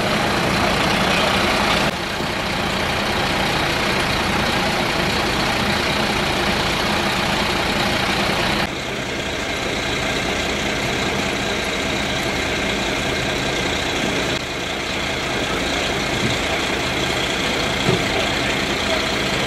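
Heavy engines running steadily, a low hum under a constant rushing noise. The level drops slightly in steps about 2, 9 and 14 seconds in.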